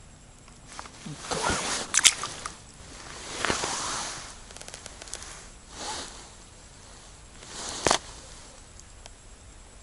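Rustling and handling noises from a winter suit and hands, in a few short swishes, with a sharp click about two seconds in and another near the end.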